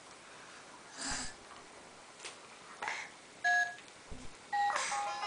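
Baby's electronic toy phone giving short two-tone button beeps, once about three and a half seconds in and again near the end, between soft handling noises.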